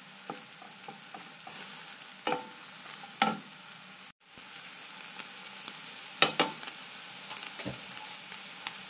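Minced meat and onion sizzling in a stainless steel frying pan, stirred with a wooden spoon that knocks against the pan several times. The sound cuts out briefly about four seconds in.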